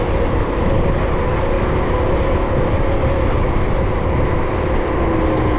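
Wind rushing over the microphone and tyre noise from a bicycle being ridden at speed: a loud, steady rush with a faint steady hum through it.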